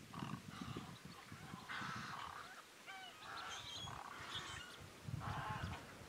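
A flock of ducks calling, mostly blue-winged teal, in repeated bursts of chatter with a few short whistled notes about halfway through.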